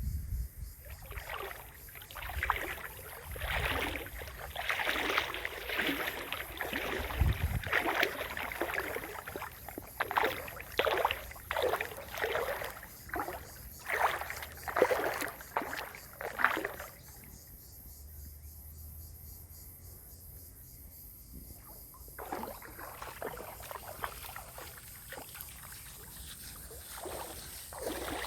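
Water splashing in a series of swimming strokes in a creek pool, roughly one a second, stopping about two-thirds of the way through and coming back more softly near the end.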